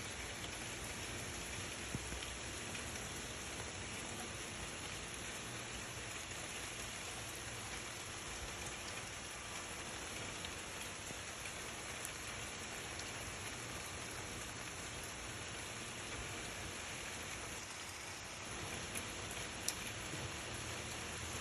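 Steady rain falling: an even hiss with a few sharper drop ticks, once about two seconds in and again near the end.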